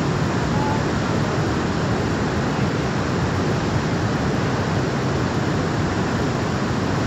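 Floodwater rushing past in a steady, loud roar with no breaks.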